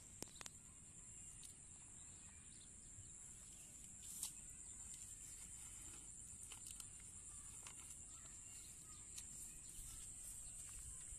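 Faint, steady high-pitched drone of insects in a wet field, with a few scattered clicks; the sharpest click comes about four seconds in.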